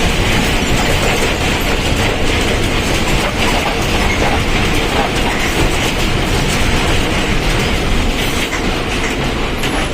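Mercedes-Benz OF1722M bus under way: its diesel engine running steadily under the noise of the moving bus, with rattling and clacking from the body.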